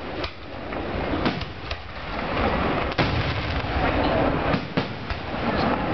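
Aerial fireworks shells bursting overhead: a string of sharp bangs at uneven intervals, the sharpest about three seconds in.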